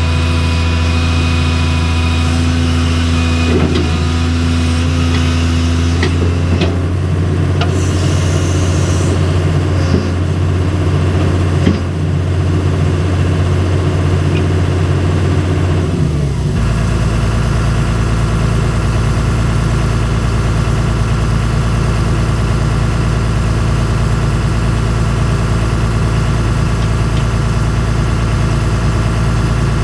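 Cat 315C L excavator's diesel engine running under hydraulic load as the boom and bucket move, with a few knocks. About halfway through the sound changes abruptly to a steady, deeper hum as the engine settles to idle.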